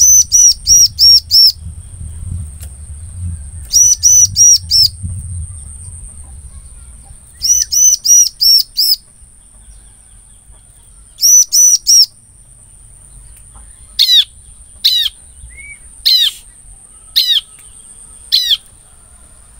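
Ciblek (bar-winged prinia) calling: four bursts of five or six quick, sharp chirps, roughly three and a half seconds apart, then in the last few seconds a run of single down-slurred notes about a second apart. A steady high-pitched whine runs underneath.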